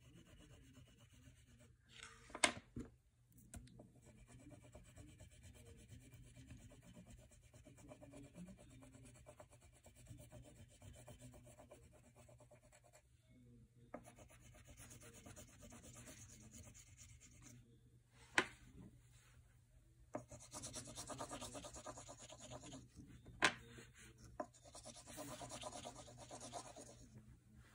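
Oil pastel stick scratching and rubbing across paper in quick colouring strokes, faint, getting louder in two stretches near the end. A few sharp clicks stand out along the way.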